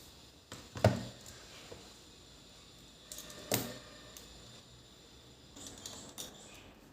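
Two sharp knocks, the louder about a second in and a second one about two and a half seconds later, with a few faint clicks between: objects being handled and set down.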